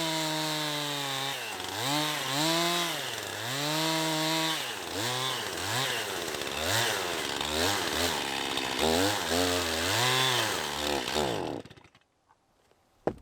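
Gasoline chainsaw cutting red oak, its engine pitch rising and falling under load. Near the end the engine dies suddenly because the saw has run out of gas.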